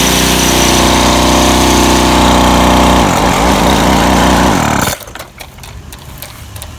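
Featherlite two-stroke gas string trimmer running at high speed, then let off the throttle about three seconds in so the engine and line head spin down in pitch. The engine sound drops away sharply about five seconds in, leaving a few faint clicks.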